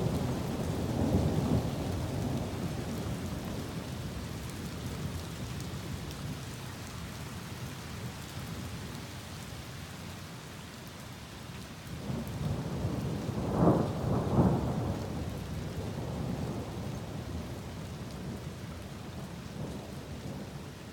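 Thunderstorm: steady heavy rain with thunder rumbling. A rumble fades away over the first few seconds, and a second rumble builds about twelve seconds in with two sharp cracks before dying away.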